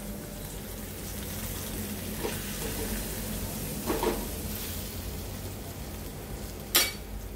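Semolina-crusted surmai (kingfish) steaks sizzling as they shallow-fry in oil in a metal pan. A steel spatula knocks against the pan three times as the pieces are turned, loudest near the end.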